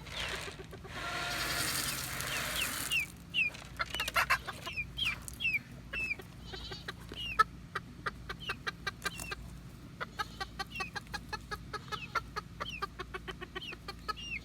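A flock of hens clucking and peeping with short falling calls while they peck at their feed, a steady patter of small clicks. A rushing hiss runs for about two seconds near the start.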